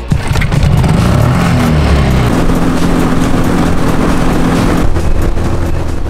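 A jon boat's outboard motor running under way, rising in pitch over the first couple of seconds and then holding steady, over a loud rush of wind and water.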